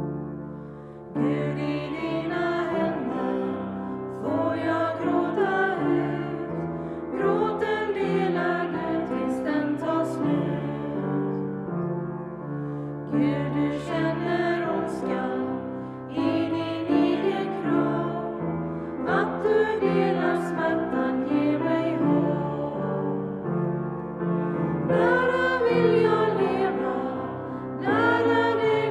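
A hymn sung with keyboard accompaniment: phrases a few seconds long, with short breaks between them, over held chords.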